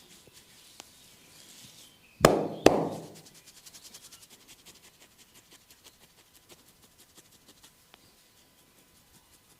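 Two sharp, loud cracks about half a second apart from the massage being worked on the body, followed by a run of faint rapid clicks.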